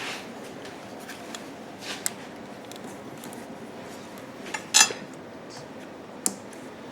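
Small metal clicks and clinks of a hose clamp being fitted onto a rubber fuel hose: a few sharp clicks, the loudest about five seconds in with a short metallic ring.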